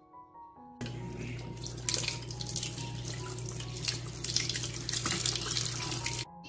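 Kitchen tap running, water splashing over a lemon held under the stream. It starts about a second in and cuts off suddenly near the end.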